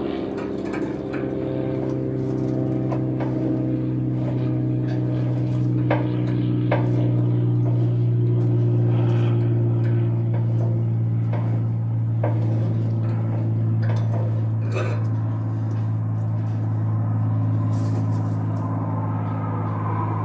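Semi-truck diesel engine idling steadily, with scattered short clicks and knocks over it.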